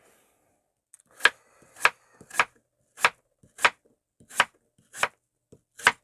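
Small kitchen knife slicing a white radish thinly against a cutting board: eight crisp strokes, the first about a second in, then about one every two-thirds of a second.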